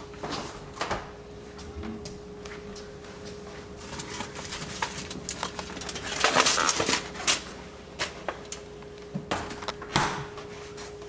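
Refrigerator door handled and opened, then aluminium foil crinkling loudly as a foil-lined pan with a steak is lifted out, about six to seven seconds in. The fridge door is pushed shut with a knock about ten seconds in, over a steady hum.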